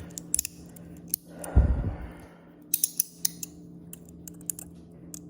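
Sharp metallic clicks from a titanium magnetic folding fan fidget slider being worked by hand, its blades snapping open and shut, with a dull thump about a second and a half in.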